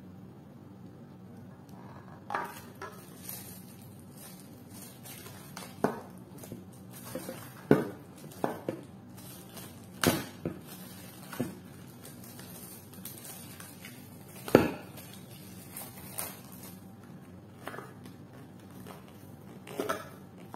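Plastic packaging bags crinkling and hard plastic blender jars clicking and knocking together as the accessories are unwrapped. The knocks come irregularly, with the loudest one about halfway through.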